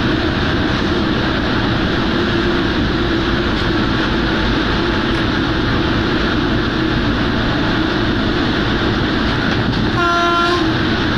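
Steady running noise inside the cab of an ST45 diesel-electric locomotive at about 120 km/h. About ten seconds in comes a short horn blast of about half a second.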